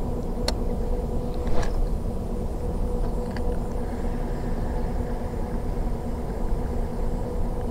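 Steady low rumble with a constant hum under it, with a few sharp clicks in the first two seconds.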